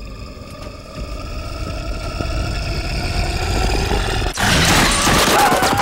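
Horror-film sound design: a drone of several tones swells, slowly rising in pitch and loudness for about four seconds. It then breaks into a sudden loud, noisy blast.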